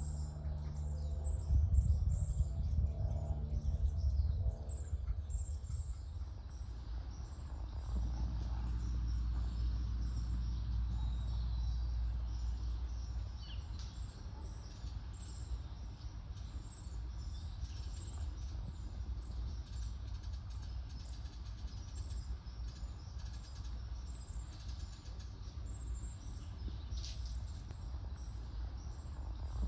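Small birds chirping outdoors: many short, high-pitched chirps repeating throughout, over a steady low rumble that is louder in the first few seconds.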